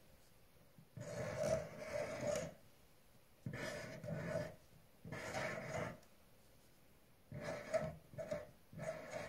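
Felt-tip pen drawing lines on paper laid on a wooden table: about six separate rubbing strokes, each a second or less long, with short pauses between.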